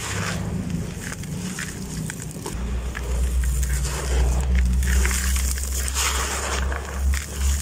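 Hands crumbling and sifting dry, gritty dirt in a plastic bucket: a grainy rustling and crunching as the dust pours through the fingers. A low rumble comes in underneath a few seconds in, and the sound gets louder from there.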